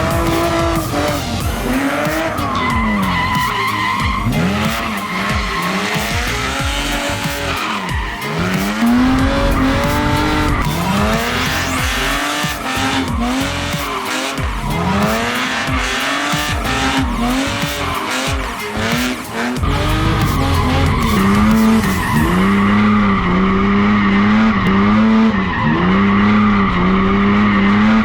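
A car engine revving up and falling back again and again while its tyres squeal and skid in a burnout. Over the last several seconds the engine is held at high revs, its pitch steady but choppy.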